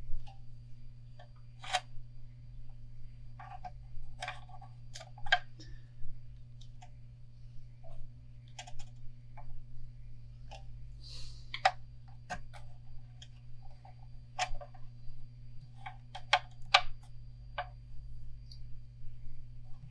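Irregular small clicks and taps of hands and a thread tool working thread on a rod held in a hand wrapper, over a steady low hum.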